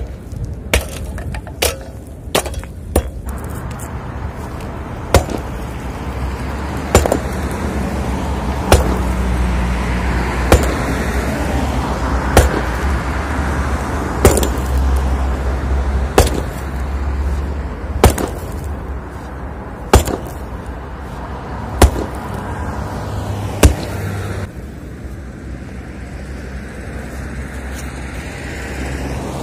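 Matrix sledgehammer striking a rebar-reinforced concrete block to break the concrete off the steel bars. There are about fifteen sharp blows: several in quick succession at the start, then one about every two seconds until a few seconds before the end. A steady low rumble runs underneath.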